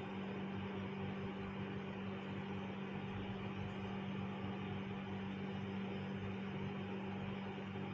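A steady, even hum with a constant hiss underneath, unchanging throughout.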